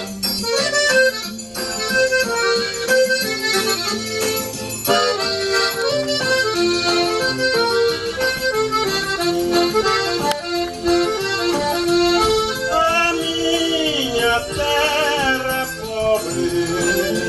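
Instrumental passage of forró music led by an accordion playing the melody, with backing instruments and no singing.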